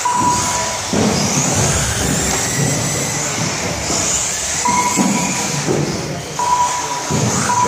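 Radio-controlled 4WD buggies racing on a carpet track, their motors giving high whines that rise and fall as they speed up and brake. A short, steady beep sounds several times.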